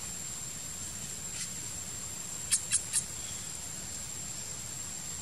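Forest ambience: a steady, thin, high insect-like whine, with three quick high-pitched squeaks from an animal about two and a half seconds in.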